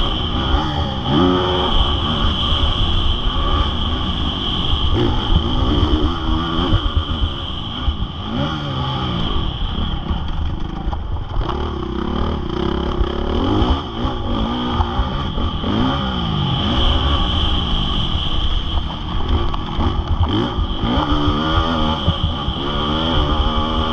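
Honda CRF450R single-cylinder four-stroke motocross engine ridden hard, its pitch climbing and dropping over and over as the throttle is opened and shut.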